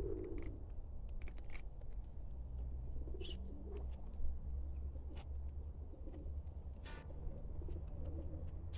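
A bird cooing softly, a low call repeated every two to three seconds, with scattered light clicks and a steady low rumble underneath.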